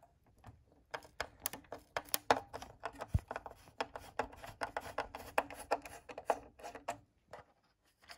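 Screwdriver turning out the screws that hold a diecast model car to its plastic display base: a quick run of small sharp clicks and ticks from about a second in, stopping shortly before the end.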